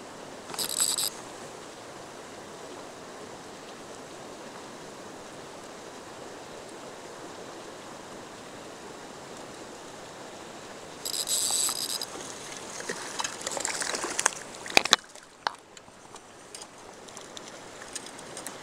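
Steady rushing noise like flowing water. Two short high-pitched whirring bursts, one about a second in and one about eleven seconds in, are followed by a run of sharp clicks and knocks, the loudest near fifteen seconds.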